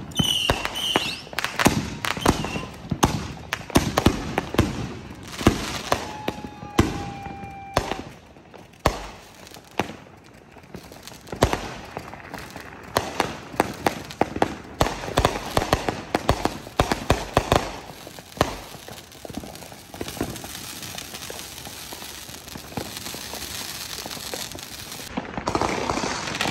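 Ground-launched consumer fireworks firing in a rapid run of bangs and crackles, with a short whistle near the start and a longer steady whistle about six seconds in. The shots thin out to scattered pops in the second half.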